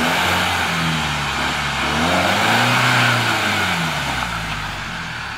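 A four-wheel drive's engine revving hard, its pitch climbing to a peak about three seconds in and falling away again, with a steady hissing rush over it. The vehicle is stuck in the mud and is about to be snatch-strapped out.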